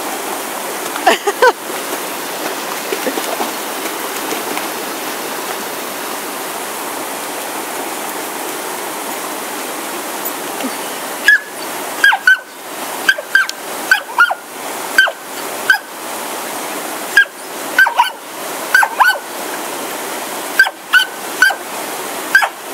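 Smooth fox terrier barking excitedly at rushing water, over the steady rush of a creek and waterfall. A couple of sharp barks come about a second in, then a run of barks about one a second from about halfway on.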